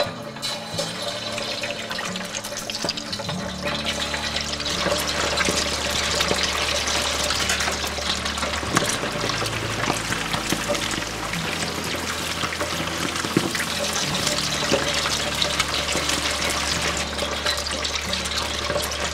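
Raw prawns sizzling in a deep pan of hot oil as they are oil-blanched, a quick flash-fry before the stir-fry. The sizzle builds a few seconds in as more prawns go in, then holds steady.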